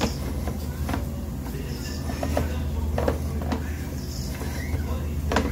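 Steady low machine hum, like an engine or motor running, with scattered clicks and knocks that come irregularly; the sharpest knock comes near the end.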